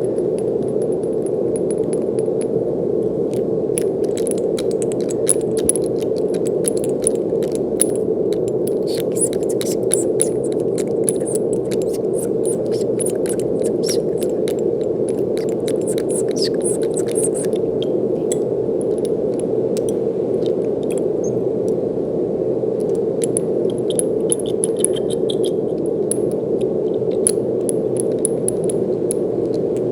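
Steady brown noise, an even low rushing hiss, with light crackling clicks scattered over it that come and go.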